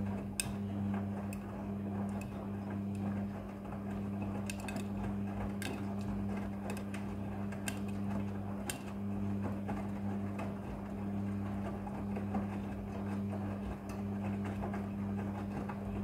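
Midea front-loading washing machine turning its drum during the wash phase: a steady motor hum, with scattered sharp clicks as the laundry tumbles against the drum.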